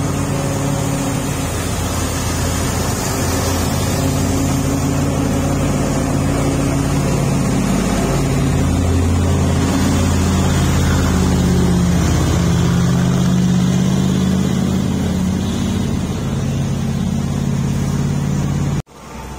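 Heavy truck's diesel engine pulling round a tight hairpin bend close by: a steady, deep engine drone that grows a little louder and higher in the middle.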